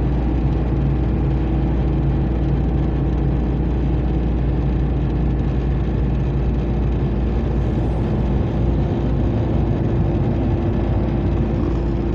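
Steady engine and road noise heard from inside the cabin of a moving vehicle, a continuous low drone with an even level.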